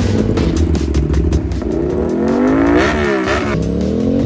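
Motorcycle engine running, at first fairly steady, then revved up and down several times from about halfway in.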